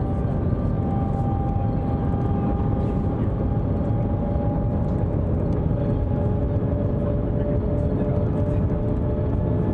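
Steady rumble and rushing air noise heard inside the cabin of the Shanghai Maglev (Transrapid) train running at speed, with a few faint steady whining tones over it.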